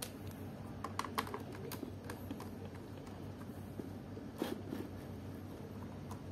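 Light clicks and taps of hands handling a laptop's plastic bottom case, a cluster of them about a second in and a louder knock about four and a half seconds in, over a steady low hum.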